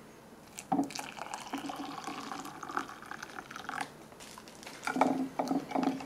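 Water poured from a kettle into a small ceramic cup of coffee powder, creamer and sugar, starting about a second in and stopping at about four seconds. Near the end, a spoon stirring in the cup, knocking against its sides several times.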